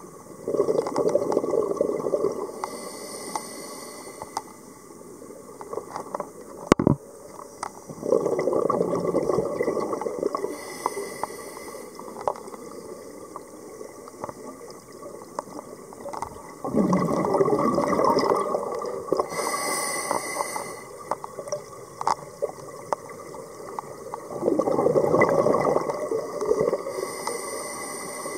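Scuba diver's breathing through a regulator underwater: four rushes of exhaled bubbles about every eight seconds, each followed by a short hissing inhale. A single sharp click sounds about seven seconds in.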